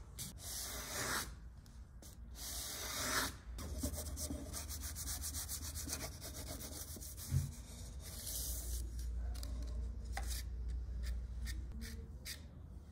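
Hand sanding: quick back-and-forth strokes of abrasive rubbing a surface, with a short pause early on and a single knock about two thirds of the way through.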